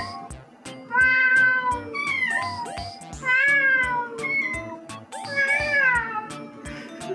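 A cat meowing about four times, each meow drawn out and falling in pitch at the end, over background music with a steady beat.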